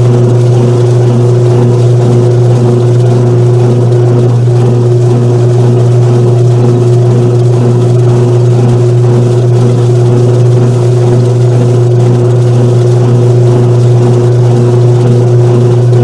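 Washing machine in its spin cycle: a loud, steady motor hum with a faint regular pulsing from the turning drum.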